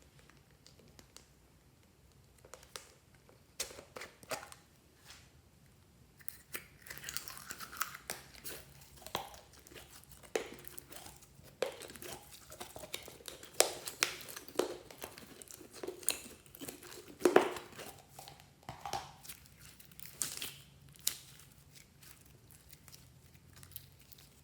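Hands working slime: irregular crackling, crinkling and sticky popping. It is sparse at first and busiest from about six seconds in until about twenty-one seconds.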